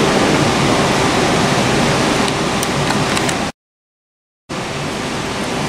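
Steady rumbling noise of model trains running on a layout. About three and a half seconds in, the sound cuts out completely for about a second, then comes back a little quieter.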